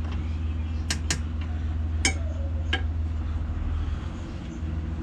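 A few sharp metallic clinks of tools and small metal parts being handled during bracket work, about four of them in the first three seconds, over a steady low hum.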